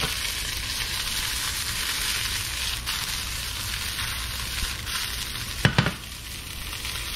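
Fish chunks frying in olive oil in a frying pan, a steady sizzle. A single sharp knock sounds about five and a half seconds in.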